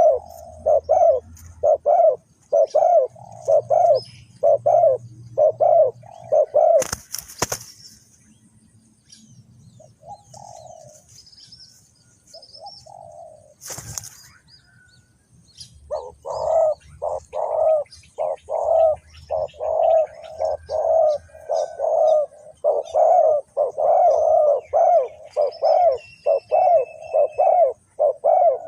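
Spotted doves cooing: rapid runs of low, repeated coo notes about two a second, breaking off for several seconds in the middle and then resuming densely. Two short rustling noises cut in, one after about seven seconds and one near the middle, with faint high chirps of small birds throughout.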